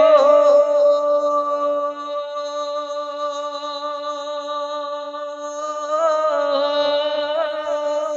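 A naat singer's voice holding one long sung note with no instrumental backing. The note stays level for about six seconds, then breaks into wavering melodic turns near the end.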